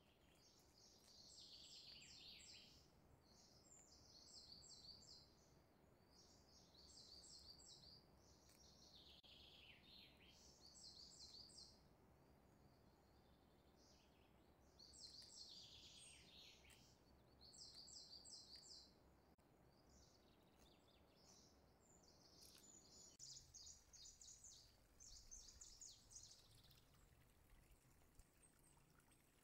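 Very faint birdsong: short clusters of high chirps and twitters, some falling in pitch, repeating every second or two, over a faint low hum.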